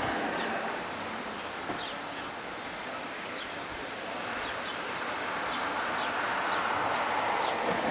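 Gusty wind rustling through the leaves of trees in a thunderstorm's outflow gust front. It eases a couple of seconds in and builds again toward the end.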